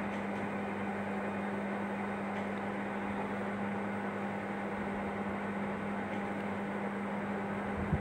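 Steady low electrical or mechanical hum over a faint even hiss of room noise, with one faint knock near the end.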